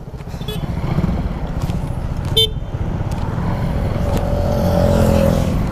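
Motorcycle engine and road noise while riding, with a brief horn toot about two and a half seconds in.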